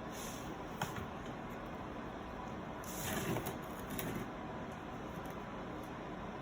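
A cat chewing on a basket: scattered small crackles and clicks, with a louder rustling crunch about three seconds in, over a steady background hiss.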